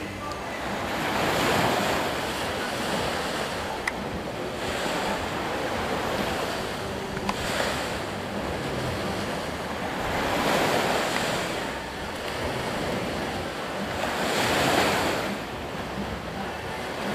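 Waves breaking on a shore, with a rushing wash that swells and ebbs every three or four seconds. Some wind buffets the microphone.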